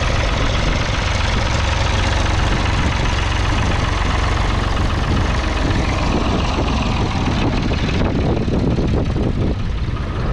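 1972 David Brown 885's 2.7-litre three-cylinder diesel engine running steadily under load as the tractor pulls a two-furrow mounted plough through the soil. The sound turns duller about eight seconds in as the tractor moves past.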